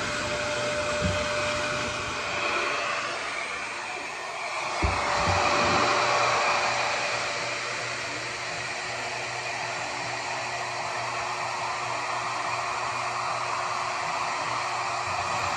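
Hair dryer blowing steadily while a child's hair is dried. A sharp thump comes about five seconds in, and the airflow sound grows fuller just after it.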